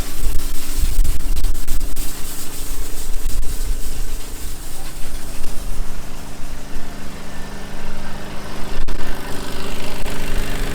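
A farm machine's diesel engine running steadily at a constant speed, with gusty low rumbling over it.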